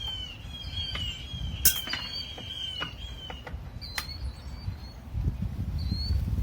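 A songbird chirping a quick run of repeated, slightly falling notes through the first half, with other short rising chirps now and then. Two sharp clicks, the louder one under two seconds in and another about four seconds in, and a low rumble that grows stronger near the end.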